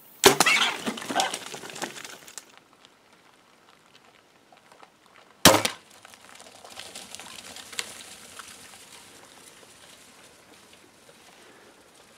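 Two sharp shots at feral hogs about five seconds apart. Each is followed by the hogs scrambling away over rocky ground, a dense burst of noise after the first and a fainter, longer patter after the second.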